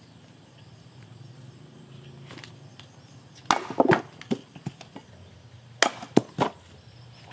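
An axe with a steel blade cut from a tractor plough disc chopping and splitting small wooden blocks on a stump: a quick run of sharp chops about three and a half seconds in, then three more around six seconds in.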